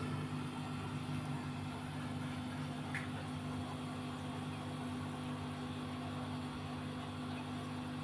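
Steady low hum of a fan or electrical appliance, with a faint tick about three seconds in.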